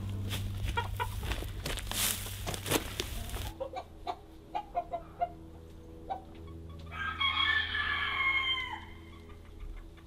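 Dry straw rustling and crackling as it is tossed by hand. Then chickens give a few short clucks, and a rooster crows once for about two seconds, the call dropping in pitch at its end.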